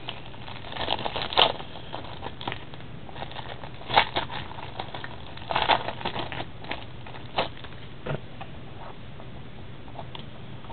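Clear plastic wrapper crinkling as it is pulled off a small stack of trading cards, heard as scattered short rustles and clicks while the cards are handled.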